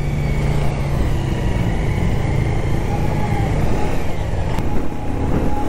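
Motorcycle engine running on the road, heard from the rider's own bike, with loud wind and road noise.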